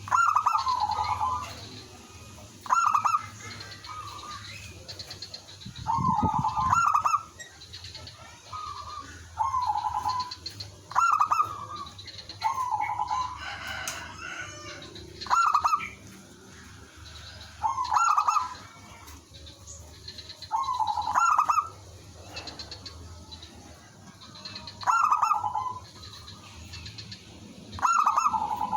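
Zebra doves cooing: short, trilled coo phrases repeat every two to three seconds, a calling dove answered by others.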